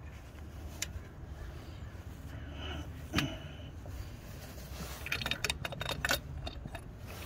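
Clicks and light metallic rattles of a hand vacuum pump and its rubber hoses being handled and worked while testing an EGR vacuum valve, with a cluster of quick clicks about five to six seconds in, over a low steady hum.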